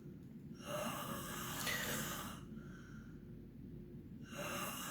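A sleeping child snoring. One long, breathy snore is followed by the start of the next one near the end.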